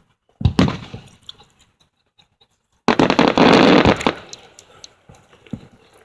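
Fireworks going off: a sharp bang about half a second in that dies away, then a louder, dense burst lasting about a second from about three seconds in.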